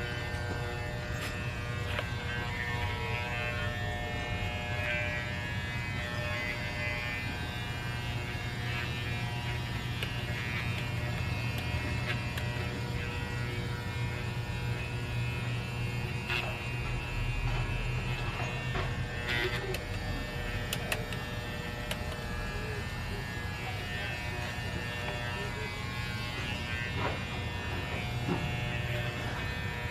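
Electric pet clippers running with a steady buzz as they shave a small dog's coat, with a few brief clicks along the way.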